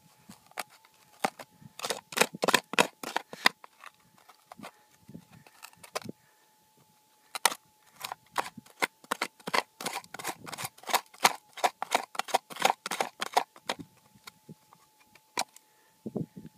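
Rapid sharp clicks and knocks of a tool and stones being dug out of a rock crevice, in a short run about two seconds in and a longer run from about seven seconds in, with scattered knocks between. A faint steady tone, a metal detector's threshold, runs beneath.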